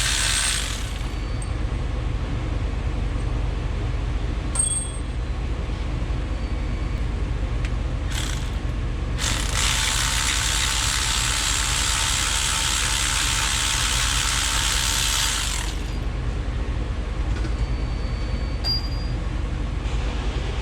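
Ratchet wrench working the transmission bolts loose, over a steady low hum, with a long hiss lasting about six seconds in the middle.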